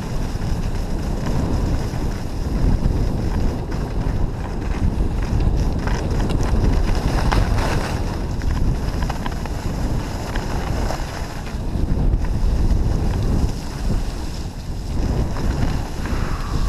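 Wind rushing over the microphone of a skier's worn camera during a fast downhill run, a steady low rumble mixed with the hiss of skis on groomed snow.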